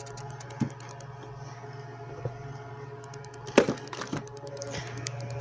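A few short clicks and knocks of objects being handled, the loudest about three and a half seconds in, over a steady low hum.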